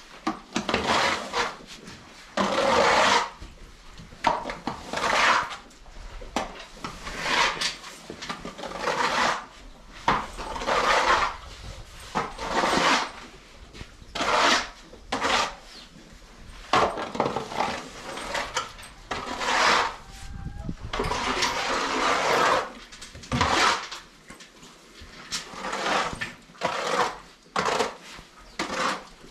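Calf dung being cleaned off a barn floor by hand: a long run of rough scraping strokes of a hand tool, roughly one every one to two seconds.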